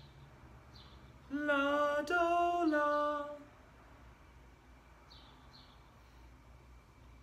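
A man singing a short minor tonal pattern of three solfège syllables, unaccompanied, starting about a second in. The three held notes rise and then fall, and the pattern lasts about two seconds.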